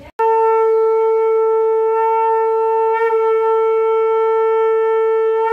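Conch shell (shankh) blown during a Hindu puja: one long, steady horn-like note lasting about five seconds, with a slight waver about three seconds in.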